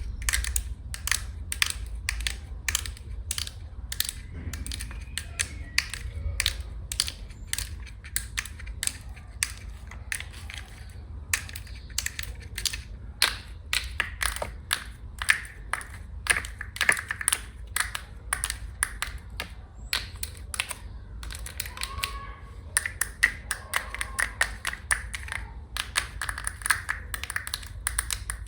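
Long fingernails tapping on a hard surface: sharp, irregular clicks several times a second, coming thicker near the end.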